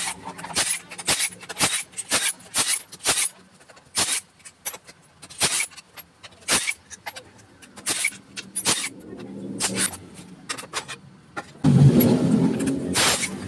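Sharp metal clicks and clinks at irregular intervals as a hand tool works the bolts of a Honda Beat scooter's CVT cover. Near the end comes a louder scraping clatter as the cover comes off the case.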